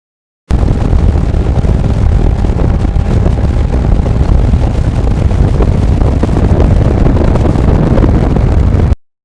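Wind buffeting the microphone on a moving motorcycle, with engine and road noise underneath. It starts abruptly about half a second in and cuts off just before the end.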